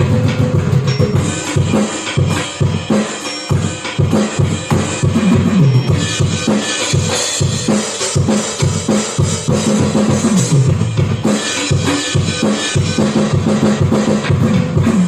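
Drum kit played in dense, fast rolls and fills on snare, toms and bass drum, with repeated runs that fall in pitch.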